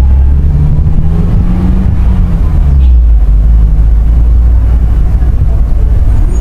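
Steady low rumble of the camera vehicle's engine while driving, with wind buffeting the microphone.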